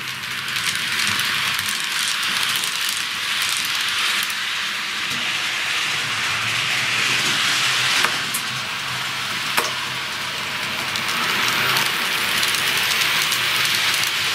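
TT-gauge model trains rolling along the layout's track: a steady rushing hiss of metal wheels on the rails, with two sharp clicks a little past the middle.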